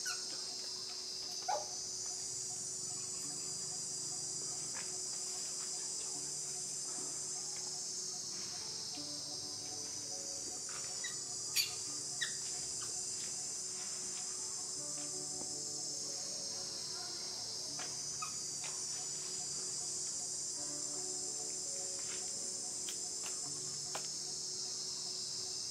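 Steady, shrill chorus of insects, such as crickets or cicadas, slowly swelling and easing, with a few brief sharp clicks about a second and a half in and near the middle.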